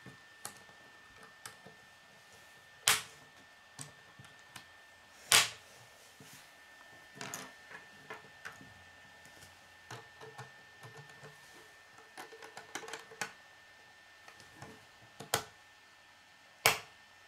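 Plastic K'nex pieces being handled and snapped together on a wooden tabletop: light clicks and rattles with several sharp snaps, the loudest about three and five seconds in and twice near the end.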